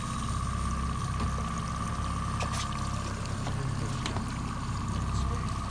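Boat engine running steadily at low speed, a low hum with a steady high whine above it, and water trickling and splashing.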